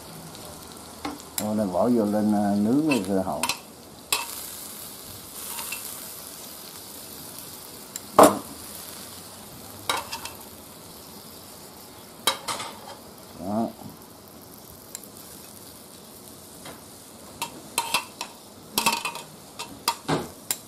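Beef, shrimp and mushrooms sizzling in oil in a metal pan while they are stirred and turned with metal tongs, with sharp clicks of the tongs against the pan; the loudest click comes about eight seconds in. A short wavering pitched sound about two seconds in, and again briefly near the middle.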